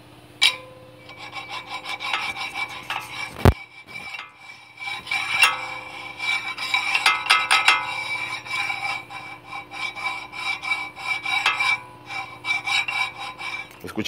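Brake disc turning against a caliper whose brake pads are worn through to the metal: a continuous rasping, metal-on-metal scrape with a steady high ringing tone, the noise of pads with no friction material left. One sharp knock about three and a half seconds in.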